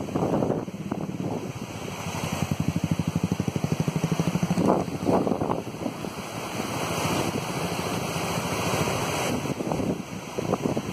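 Wind buffeting the microphone over the rush of a flooded river, with a motorcycle engine's rapid, even beat loudest from about two to five seconds in.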